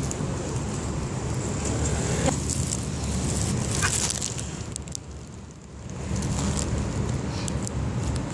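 Steady low rumble and hiss of outdoor background noise, dipping briefly about five seconds in, with a few faint clicks.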